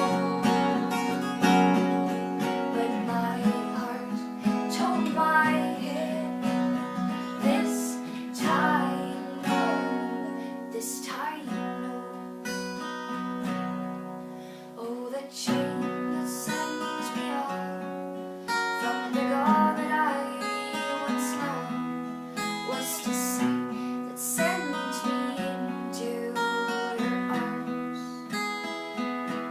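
Acoustic guitar strummed steadily in a song, with repeated chord strokes.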